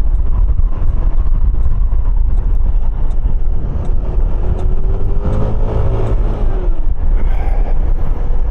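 Heavy wind rumble on the microphone over a 125 cc motor scooter's engine while riding, with a short pitched tone that bends up and down about five to six and a half seconds in.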